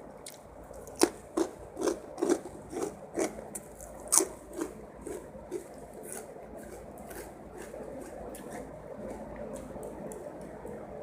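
Close-miked chewing of a mouthful of fried rice, wet rhythmic chews about twice a second for some four and a half seconds, then fading to faint mouth sounds.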